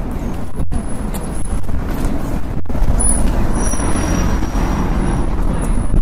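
City road traffic: a steady, heavy low rumble of vehicles running past, swelling about halfway through, with faint thin high-pitched tones over it.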